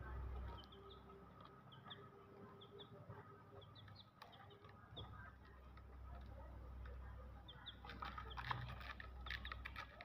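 Young chicks peeping faintly: short, high cheeps scattered through, with a flurry of light taps near the end as they peck at feed on the plastic basket.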